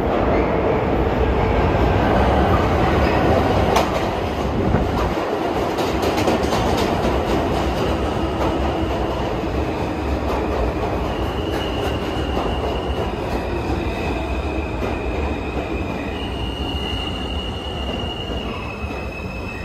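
R160 subway train running through the station: steady wheel and rail rumble with clicks over rail joints in the first half, then high-pitched wheel squeal from about halfway through, the whole sound slowly fading.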